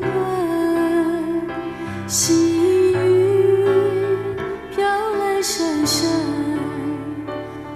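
Music from a slow Mandarin ballad: a held, gliding lead melody over bass notes and chords. Cymbal strokes fall about two seconds in and twice around six seconds in.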